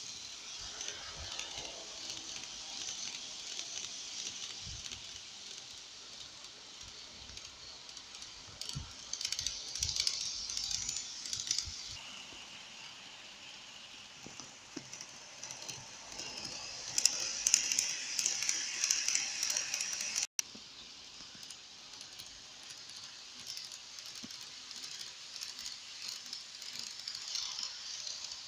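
N-gauge model trains (Meitetsu 2000 series μSky coupled with a 1700 series) running on sectional track with a high whir and light rattling of wheels on the rails. The sound grows louder twice as the train passes close.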